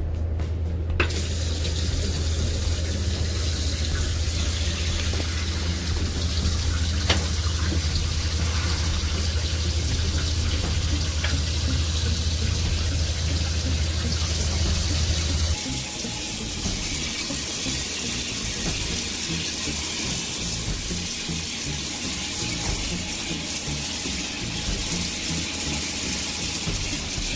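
Shower water spraying steadily from a showerhead into a tub. A low steady hum runs underneath and cuts off a little past halfway through.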